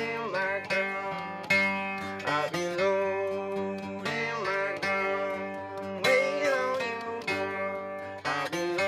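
A man singing a slow song, holding and bending long notes, while strumming an acoustic guitar.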